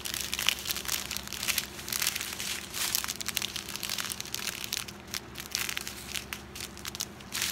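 Strip of small plastic packets of diamond-painting drills crinkling as it is handled and passed through the hands, an irregular run of crackles.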